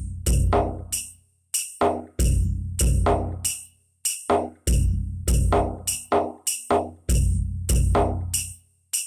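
Roland SPD-20X Octapad pads struck with drumsticks, triggering the electronic percussion sounds of a programmed patch. A steady rhythm of about two to three strikes a second mixes deep low drum hits with brighter, higher hits, each fading before the next.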